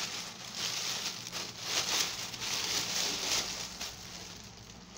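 Thin plastic shopping bag crinkling and rustling in quick irregular crackles as a head of cauliflower is pulled out of it, dying away near the end.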